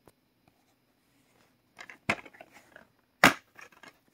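Plastic DVD case handled and turned over: light rustling and clicks, with two sharp clacks about two and three seconds in, the second one the loudest.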